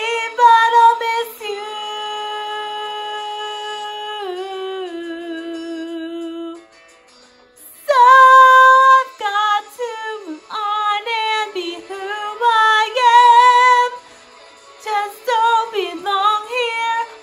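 A young woman singing with vibrato: two long held notes, a brief pause, then quick runs of notes up and down.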